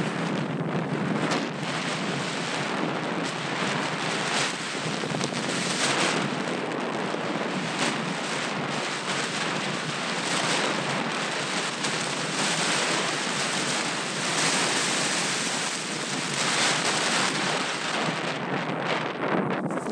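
Wind rushing over a helmet-mounted camera's microphone during a parachute descent: a steady rush of air noise that swells and fades, falling away near the end as the jumper nears the ground.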